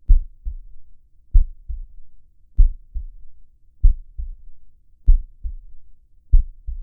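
Slow heartbeat, each beat a strong low thump followed by a softer one (lub-dub), about one beat every one and a quarter seconds, six beats in all.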